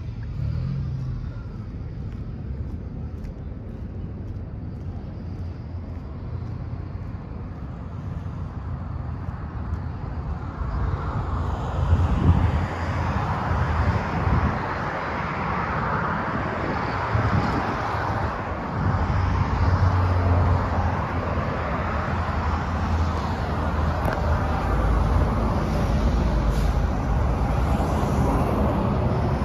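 Outdoor ambience of road traffic going by, a steady rumble and hiss that grows louder about a third of the way in.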